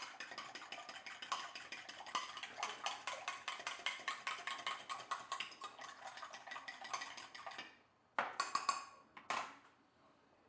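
A utensil beating egg whites and a whole egg in a bowl, with fast, steady clicks against the bowl that stop about three-quarters of the way through. Two short clattering noises follow near the end.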